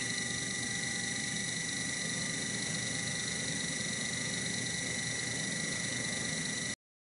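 Sherline CNC mill running steadily as a 3/32-inch carbide end mill cuts a slot in 1144 steel: an even whine with a hiss under it. It cuts off abruptly near the end.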